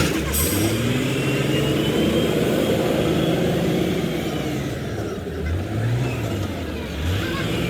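An engine running, its speed rising and falling slowly, with a sharp click right at the start.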